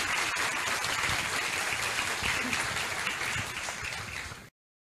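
Audience applauding steadily with many hands clapping; the sound cuts off suddenly about four and a half seconds in.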